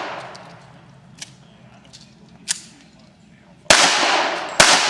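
Pistol shots: two loud reports about a second apart near the end, each followed by a long echoing tail, with two fainter sharp cracks earlier on.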